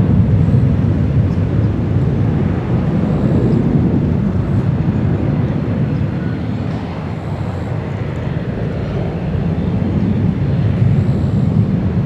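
Jet airliner's engines, a loud low rumble close to the runway, easing slightly partway through and swelling again near the end.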